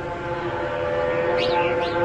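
A steady, horn-like drone of several tones held together, slowly swelling louder, with two short high chirps over it near the end.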